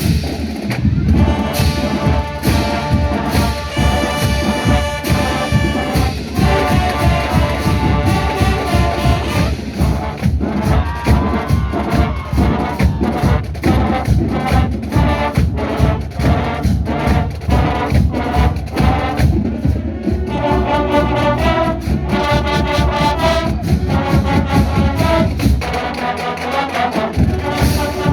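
Marching band playing a loud brass tune, trumpets and trombones over a steady, driving drum beat; the bass drums drop out briefly near the end.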